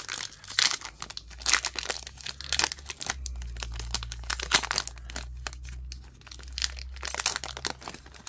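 Foil-lined trading-card pack wrapper being torn open and crinkled by hand: a dense run of sharp, irregular crackles and rips.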